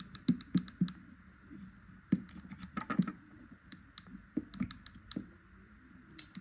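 Repeated clicks of the plastic push buttons on a battery-powered hose-end irrigation timer, pressed in quick runs to step the clock setting. There are several fast clicks in the first second, then single presses and short runs every half second or so.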